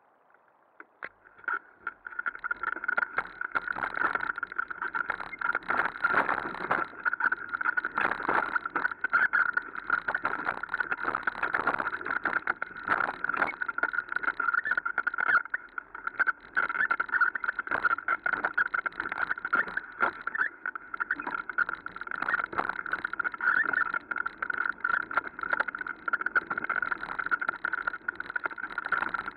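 Mountain bike rattling and clattering over a rough dirt trail, starting about two seconds in, with a steady high whine running underneath.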